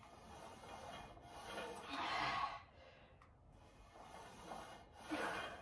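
Faint breathing of a person straining through an exercise, with a longer breath out about two seconds in and a shorter one near the end.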